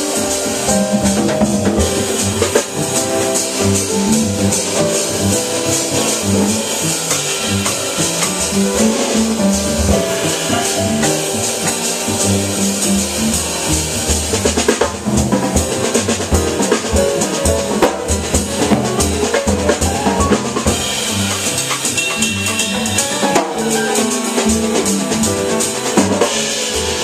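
Jazz piano trio playing live: grand piano, upright bass and drum kit, with the drums and ride cymbal prominent.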